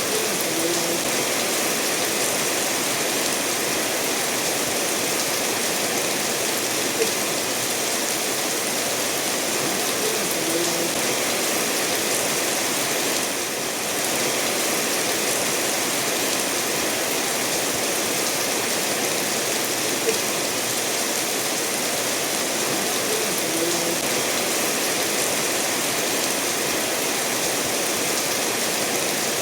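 Steady rainfall mixed with a stream running over stones, an even hiss with a few small drip-like plinks and two sharp ticks. The level dips briefly about halfway through.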